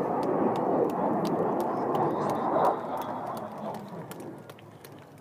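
Jet roar of a MiG-29 fighter's twin turbofan engines as it flies away, loud at first and fading out from about three seconds in, with faint sharp ticks over it.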